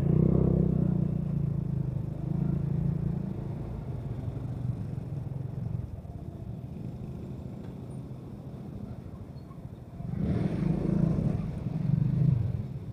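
Motorcycle engine running at low riding speed, growing louder as it pulls away near the start and again about ten seconds in.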